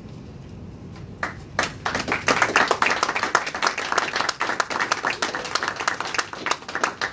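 A group of people clapping in applause, beginning about a second and a half in after a brief quiet.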